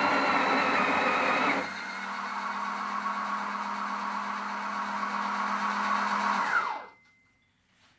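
Sage (Breville) Oracle Touch's built-in conical burr grinder grinding into the portafilter, stopping about a second and a half in. A quieter motor hum with a steady low tone follows for about five seconds: the machine's automatic tamping. It winds down with a falling pitch and cuts off near the end.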